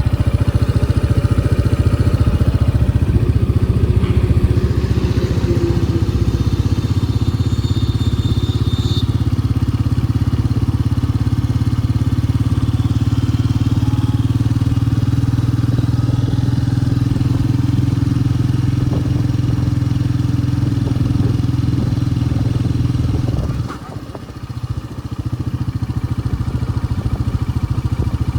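Motor vehicle running steadily on the road, with a strong low engine hum and road noise; the level drops briefly about 24 seconds in, then picks up again.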